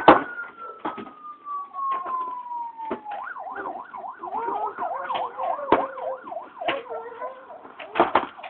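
Fire engine sirens: a slow wail that falls away over the first three seconds, then switches to a fast up-and-down yelp with more than one siren overlapping. Sharp loud cracks cut in here and there, the loudest right at the start.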